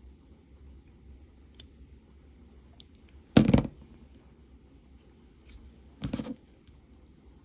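Hands working thin silver-plated copper wire around a pendant frame: faint small clicks of wire and tools, and two short, loud rustling bursts, about three and a half and six seconds in.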